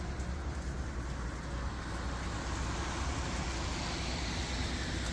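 Steady low rumble of a DAF XF's diesel engine idling, under an even hiss of truck-wash water spray that swells slightly about three seconds in.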